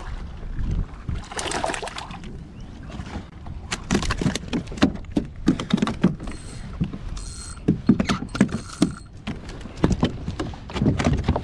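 Irregular knocks and clicks of a spinning rod and reel and the plastic kayak hull as a hooked speckled trout is reeled in and brought aboard, the knocks thickening from about four seconds in.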